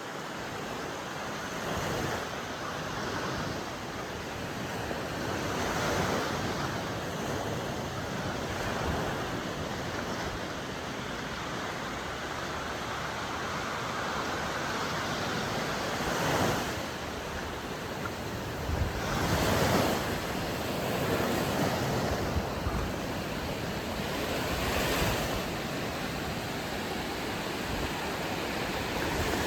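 Sea surf: waves breaking and washing in, a steady rush that swells and fades every few seconds, with several bigger surges in the second half.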